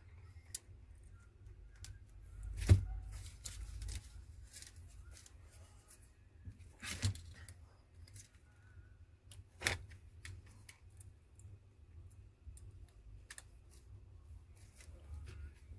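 Small clicks and taps of a smartphone's parts being handled and fitted back together by hand, with three sharper knocks about three, seven and ten seconds in.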